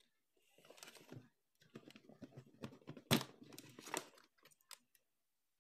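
Handling noise from a mixer grinder's plastic housing, base plate and test-lead wires being moved about: irregular rustling and light knocks, with one sharp click about three seconds in.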